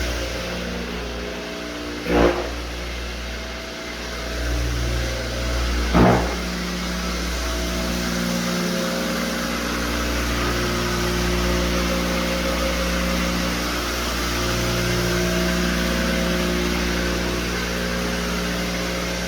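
Electric floor buffer running steadily as it screens (abrades) the old polyurethane finish on a hardwood floor, with two short knocks about two and six seconds in.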